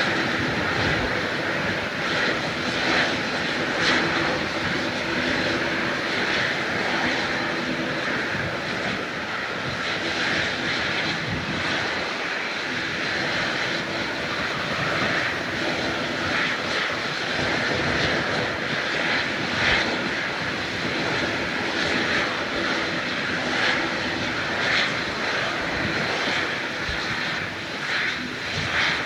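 Jet airliner engines running with a steady, loud noise, strongest in the upper-middle range, with a few faint low hums underneath.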